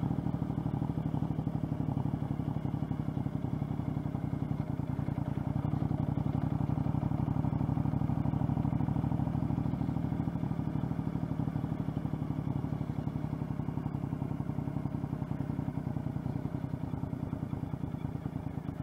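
2013 Triumph America cruiser's 865cc parallel-twin engine running steadily on the move, heard from a helmet-mounted microphone; the engine sound drops a little near the end as the bike eases off.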